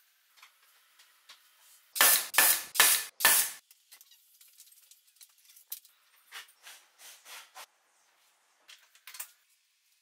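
Wood scraping on wood during hand assembly at a workbench: four loud quick rasping strokes about two seconds in, then fainter scrapes and light knocks.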